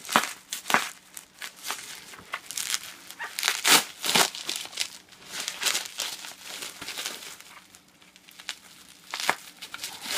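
Packaging of a shipping box being picked and torn open by hand with fingernails: irregular crinkling, scratching and tearing, with a few sharper crackles.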